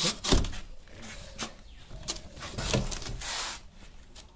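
Cardboard box scraping and rustling as a tea harvester is handled and pulled out of its packaging, with a knock just after the start and a louder scrape about three seconds in.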